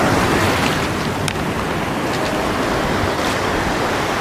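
Small sea waves washing in over a sandy beach in a steady rush, with wind rumbling on the microphone.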